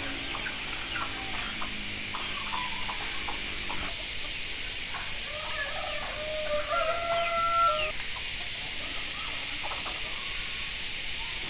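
Chickens in a farmyard: short clucking calls, then a rooster crows once, about six and a half seconds in, the loudest sound here, over a steady high background hiss.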